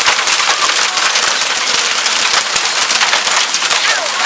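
Hail and rain pelting down hard on concrete and a patio roof, a dense, steady clatter of countless small impacts.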